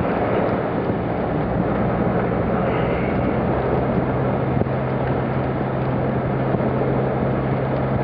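Steady rush of strong blizzard wind heard from inside a Jeep's cab, with the engine's steady low hum underneath.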